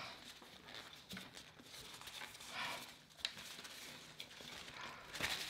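Faint eating sounds from someone working through a fried chicken sandwich: soft chewing and mouth clicks with light rustles, and one sharper click a little past the middle.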